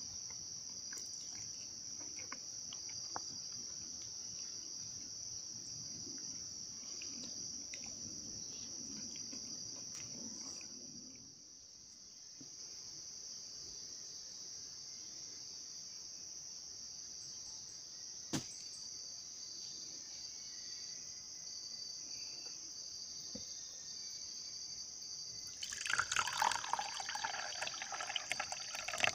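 High, steady insect chorus with a faint regular pulse running throughout. Near the end, liquid is poured into a wooden mug, splashing for about three seconds; this is the loudest sound.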